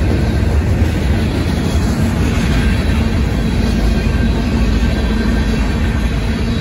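Freight train cars rolling steadily past at a grade crossing: a loud, continuous rumble and clatter of steel wheels on the rails.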